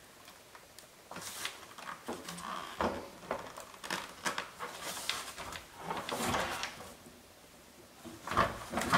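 Plastic parts and wiring of a Tesla Model S bi-xenon headlight housing being handled and worked apart: irregular clicks, small knocks and scrapes, with a fuller knock and scrape about six seconds in.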